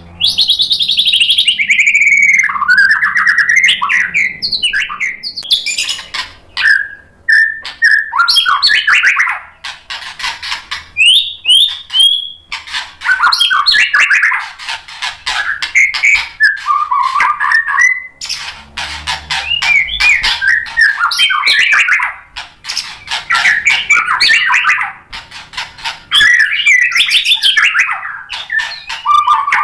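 White-rumped shama (murai batu) singing a loud, nearly continuous, fast-changing song. Quick chattering rattles mix with whistled notes that slide down and up, broken by a few brief pauses.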